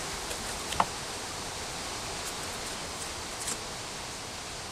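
Steady outdoor hiss with faint rustling as hands handle Labrador tea leaves inside a folding metal pot, and one short sharp tick about a second in.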